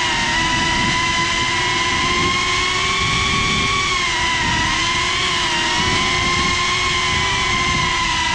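FPV quadcopter's electric motors and propellers whining steadily, heard from the onboard camera with a rush of air underneath. The pitch wavers slightly up and down with the throttle.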